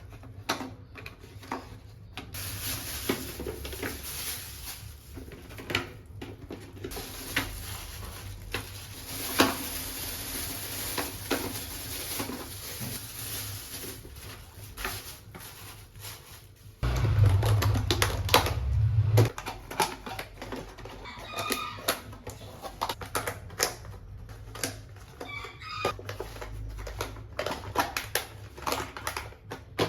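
Repeated clicks, knocks and rustles of groceries and containers being handled, with a low rumble for about two seconds past the middle. A rooster crows a few times about three-quarters of the way through.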